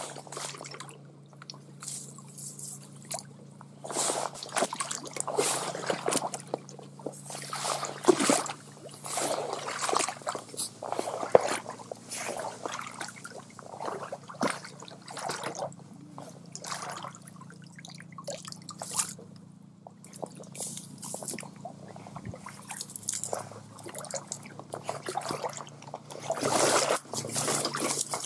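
Irregular splashing and sloshing of shallow stream water as someone wades and works a hand net through the weeds, coming in uneven bursts with louder spells near the start, in the middle and near the end.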